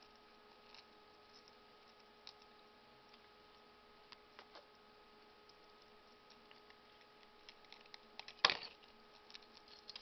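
African grey parrot biting into a cracker held in its foot: scattered faint beak clicks and small crunches, with one sharp, louder click near the end amid a quick run of ticks, over a faint steady hum.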